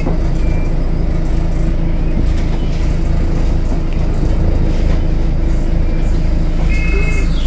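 Alexander Dennis Enviro200 bus diesel engine running with a steady low drone. The bus is in limp mode. A short two-tone electronic beep sounds about half a second in, and again near the end.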